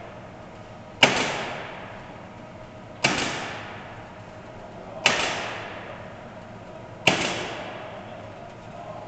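Pneumatic nailer on an automated wall-panel sheathing bridge driving nails into the sheathing: one sharp bang about every two seconds, each with a ringing decay.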